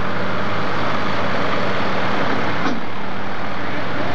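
Super stock pulling tractor's engine idling loudly and steadily at the starting line, with a deep, even hum.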